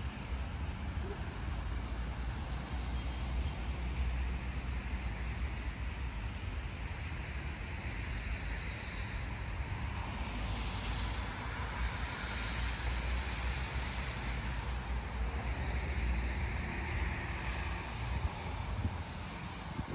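Road traffic from a nearby street: a steady low rumble with cars swelling past, tyres hissing on wet road, around the middle and again near the end.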